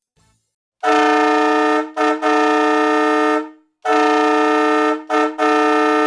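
Wolo Cannon Ball Express air-powered train horn, its three chrome-plated brass trumpets sounding a loud, steady chord. It blows long, short, long, and then repeats the same pattern.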